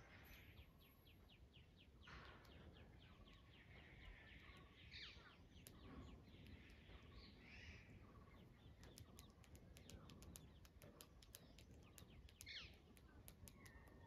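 Faint mix of wild birds chirping and calling over one another, with short trills and a few gliding calls, and a run of quick high ticks in the second half.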